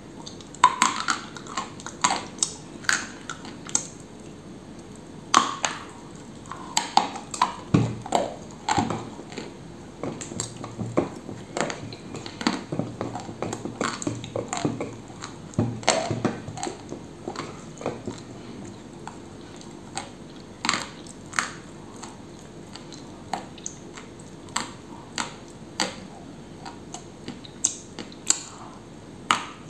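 Close-miked crunching and chewing of dry edible clay: sharp, crisp crackles as pieces are bitten off and ground between the teeth, with quieter wet chewing between bites. The crunches come thickest in the first half and more spaced out later.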